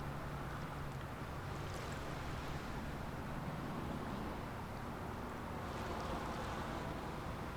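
Low, steady drone of a large Ro-Ro passenger ferry's engines passing offshore, under an even wash of wind and water noise.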